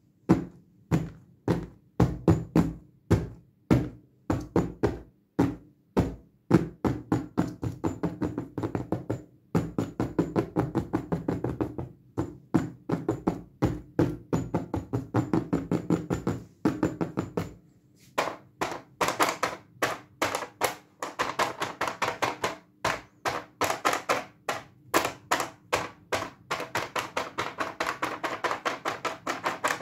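Rapid fingertip and fingernail tapping on a padded silver case, about three to four taps a second. From about 18 seconds on, the taps turn brighter as the tapping moves to a cardboard doll box with a plastic window.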